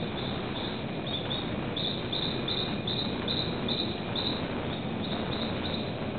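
Rainforest ambience: a steady rushing background with a short, high chirping call repeated about three times a second, clearest in the middle.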